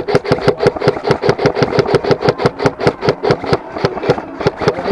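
Airsoft gun firing rapidly: a steady stream of sharp cracks, about eight a second, over a continuous mechanical whine. The whine drops out briefly about four seconds in.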